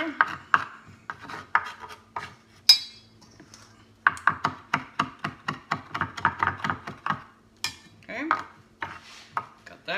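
Kitchen knife chopping fresh lovage finely on a wooden cutting board: quick knocks of the blade against the board. A fast even run of about five strokes a second comes in the middle, after a short pause, with looser strokes before and after.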